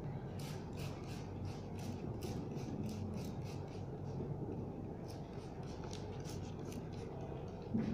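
Hand-pumped trigger spray bottle spritzing water onto tissue paper, a quick series of short hisses at about three or four a second.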